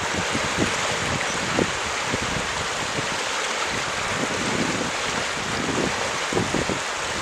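Steady rushing noise outdoors with irregular low buffets of wind on the microphone.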